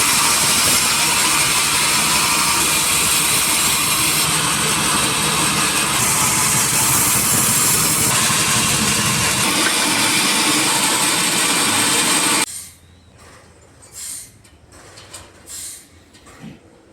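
Loud, steady noise of sawmill machinery, changing abruptly a few times and stopping suddenly about twelve seconds in, followed by quieter short hissing puffs.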